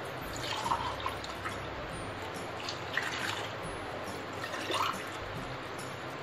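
Water poured from a steel glass into a pan of whisked yogurt and gram flour, splashing and dripping in a few short pours, about a second, three seconds and five seconds in.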